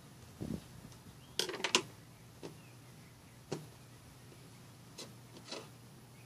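Scattered light clicks and knocks of hands handling scissors and small items on a glass-topped table, the loudest a quick run of clicks about a second and a half in.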